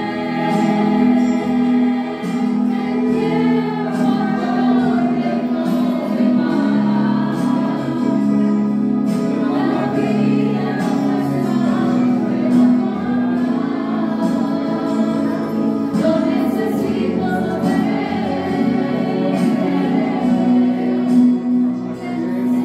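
A woman singing a melody into a corded microphone, amplified through a sound system, over steady instrumental accompaniment.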